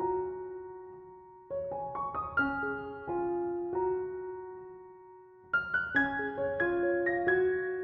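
Background music: a gentle piano melody, its struck notes dying away, with a fuller passage starting about five and a half seconds in.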